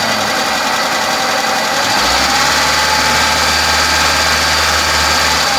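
Hyundai Atos four-cylinder petrol engine running. About two seconds in it revs up, as the throttle cable at the engine is pulled upward by hand, and then holds at the higher speed.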